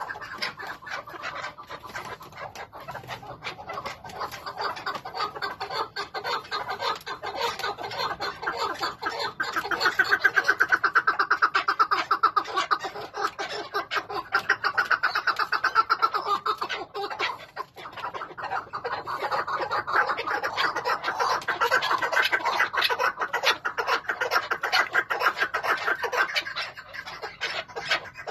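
Chukar partridges calling: a continuous run of rapid, repeated clucking notes, loudest about ten seconds in and again in the second half, with a short break a little past the middle.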